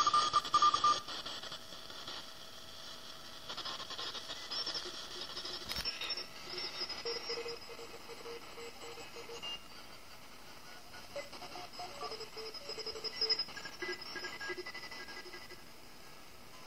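Shortwave receiver tuned by hand across the 80-metre band around 3.51 MHz: steady static hiss with thin tones drifting in and out and short keyed tones breaking on and off. It is louder for about the first second.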